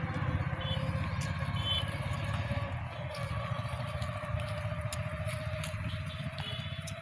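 An engine running steadily, its pitch creeping slowly upward, with three short high chirps over it.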